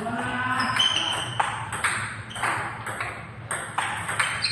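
Table tennis rally: the celluloid ball is struck by the bats and bounces on the table in quick, sharp clicks, roughly two a second.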